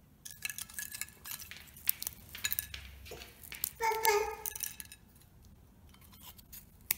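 Freeze-dried fruit and broccoli pieces being handled on a ceramic plate: a run of light, crisp clicks and crackles as the brittle pieces are picked up, pressed and tapped against the plate, busiest in the first five seconds, with one sharp click near the end.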